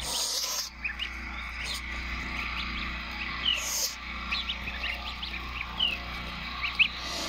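Goslings peeping as they feed: many short, rising peeps scattered a few at a time, with two brief rushes of hissy noise, one just after the start and one a little before the middle.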